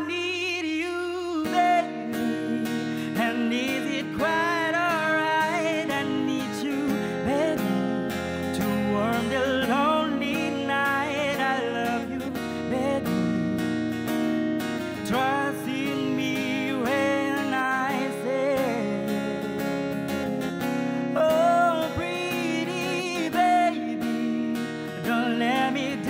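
Live acoustic guitar strummed as accompaniment to a man singing a slow ballad, his voice wavering through long held notes.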